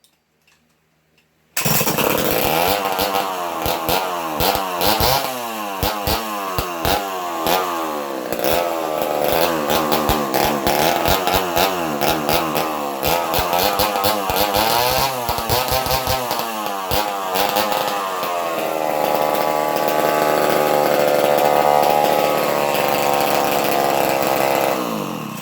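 Vintage Chrysler 560 SL direct-drive two-stroke chainsaw running after about a second and a half of quiet, revved up and down unevenly, then held at a steadier higher speed before it stops at the end. The owner says the saw needs carburetor work.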